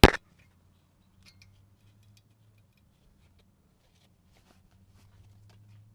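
One sharp click right at the start, then a few faint small clicks and ticks from hand work on a brake caliper's retaining clip and slide pins, over a faint low steady hum.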